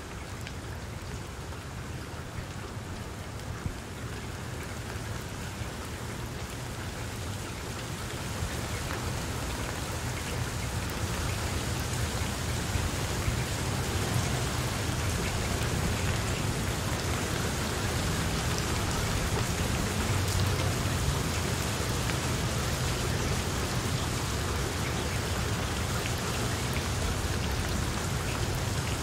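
Heavy rain falling on papaya leaves: a dense, even hiss with scattered sharper drop ticks. It grows louder and heavier about a third of the way in, then holds steady.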